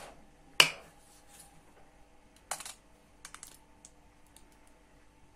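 Plastic mustard squeeze bottle handled: a sharp click from the cap near the start, then a few smaller clicks and sputters as mustard is squeezed out onto the food.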